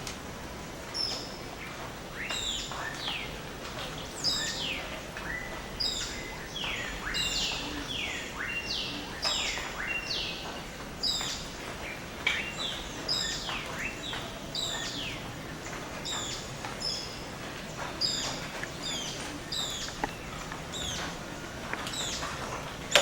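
Tropical rainforest birds calling at dawn: many short, clear whistles that slide downward in pitch, overlapping one another several times a second, over a steady low background hiss.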